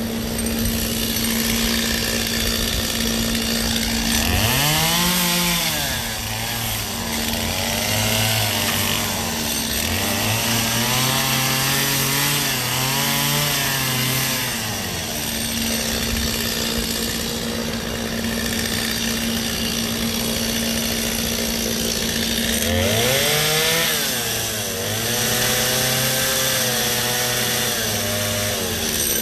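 Gas chainsaw carving ice: the engine revs up and drops back over and over, with long high-throttle stretches at about 5 s, 10–15 s and 23–28 s, over the constant hiss of the chain cutting. A steady low hum runs underneath.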